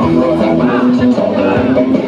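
Loud music playing for a dance routine, with held notes and a steady beat.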